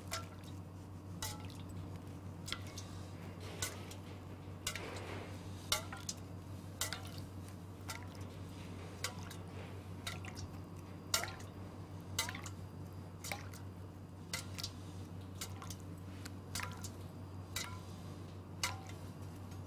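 A pastry brush dabbing rum syrup onto a chocolate sponge sheet and dipping into a stainless steel bowl of syrup: scattered light taps and wet dabs at an irregular pace, over a steady low hum.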